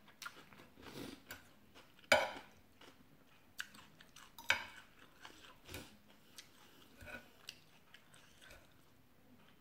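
Close-up eating sounds: chewing mouthfuls of khanom jeen rice noodles in curry sauce, with scattered clicks of a fork and spoon against the plate. The sharpest click is about two seconds in, another about halfway through.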